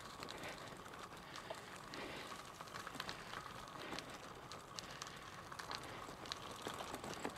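Bicycle tyres rolling over a gravel towpath: a faint, even crackle with scattered small ticks of grit.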